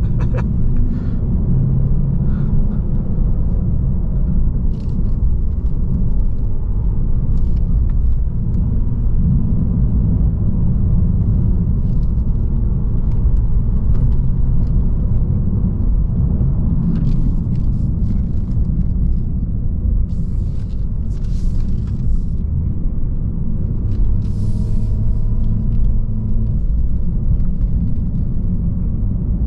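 Lexus RC350 F Sport's 3.5-litre V6 and road noise heard from inside the cabin while driving: a steady low drone, with a few brief hissy bursts over it.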